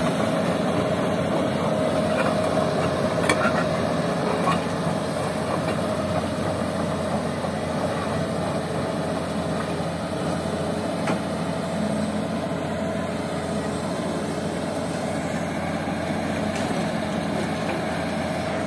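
Diesel engines of a Hitachi excavator and a loaded dump truck running steadily, with a few faint knocks.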